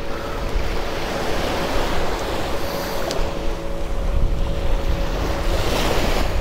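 Small surf waves washing onto a sandy beach, with wind buffeting the microphone.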